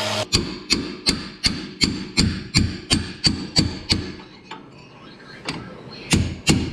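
Steady hand-hammer blows on metal, about three strikes a second, each with a slight ring. They stop for a moment a little past the middle, then resume.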